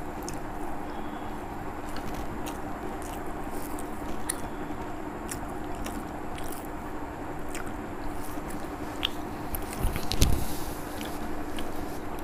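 Close-up chewing and mouth sounds of a person eating rice, fried egg and mashed potato by hand, with small clicks as her fingers mix the food on the plate, over a steady low hum. A louder low thump comes about ten seconds in.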